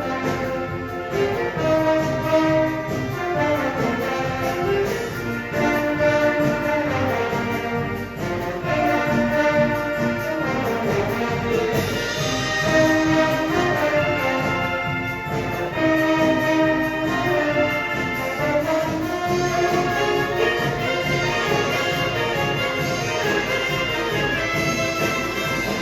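Marching showband playing a medley of Manila Sound pop tunes, with brass (trumpets and trombones) carrying the melody over a steady drum beat.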